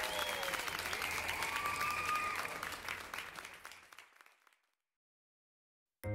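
Applause with a few cheers, fading out over the first four seconds or so into dead silence. A tinkly tune starts just before the end.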